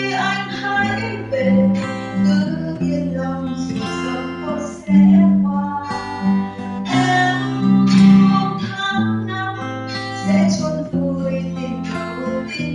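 Acoustic guitar played alone, strumming a chord progression as an instrumental break between sung lines, picked up by a LOOC C26EP security camera's built-in microphone.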